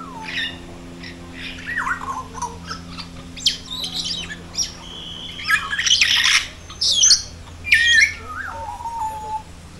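A mix of birds calling, harsh squawks and short sliding whistles from several birds at once, growing busier and louder in the second half. A steady low hum runs underneath.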